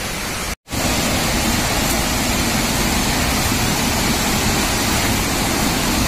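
Steady rushing of river water, broken by a brief cut to silence about half a second in.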